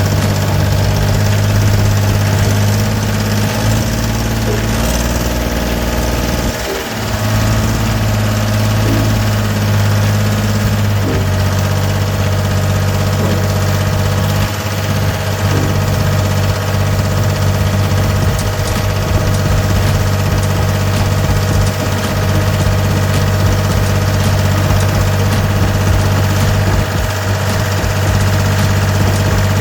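Gehl 4640 skid steer's Deutz diesel engine running at a steady idle, with a brief change in engine note about five to seven seconds in.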